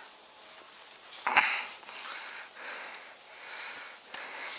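Handling noise while a KP-250 body-grip beaver trap is being cocked by hand and boot in dry grass: a sharp noisy burst about a second in, then softer rustling.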